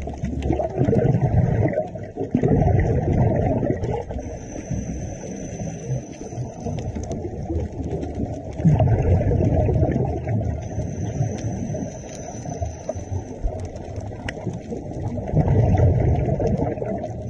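Muffled underwater audio of scuba divers breathing through their regulators, with several louder rushes of exhaled bubbles. A faint high whine comes and goes behind it.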